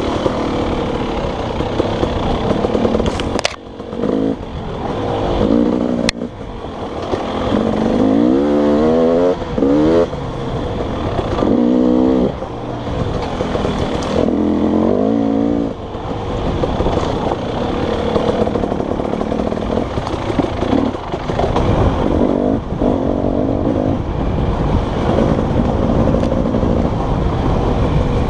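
Dirt bike engine revving up and dropping back again and again as the throttle is worked, with a few sharp knocks and clatter from the bike.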